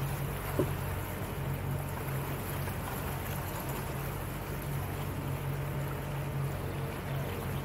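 Small motorboat's outboard motor running steadily with a low hum, under the wash of water along the hull. A brief click about half a second in.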